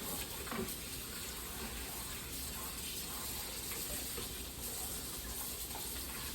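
Kitchen faucet running steadily into the sink while dishes are rinsed by hand.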